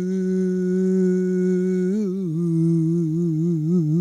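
A man singing into a microphone: a long held note, then from about two seconds in a run of quick wavering turns up and down in pitch.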